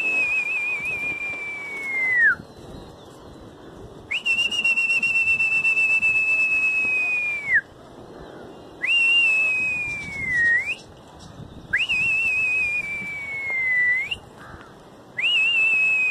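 A person whistling to a flock of flying pigeons: a string of long, loud whistles. Each opens with a quick rise and a short warble, holds nearly one pitch, then glides down at the end, a few turning back up. About five whistles come one after another with short gaps.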